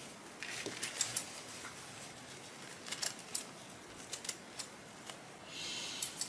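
Curved dog-groomer shears snipping test material: scattered short, sharp snips, a few at a time, as the blades are tried for cutting after being bent to correct their curve and alignment. A brief rustle of the material near the end.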